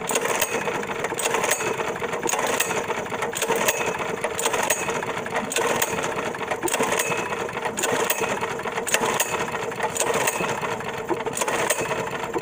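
Predator 6.5 hp single-cylinder engine turned over again and again on its recoil pull-starter with the spark plug out, a steady, rapid mechanical rattle. The cranking is pumping water out of the hydrolocked cylinder through the plug hole.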